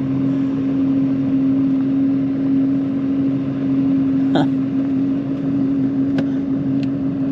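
An engine running steadily, with a constant hum. A brief falling squeal comes about four seconds in, and a few light clicks follow near the end.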